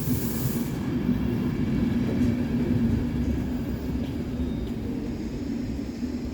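Train rumbling at a station platform with a steady low hum; a high hiss cuts off abruptly under a second in.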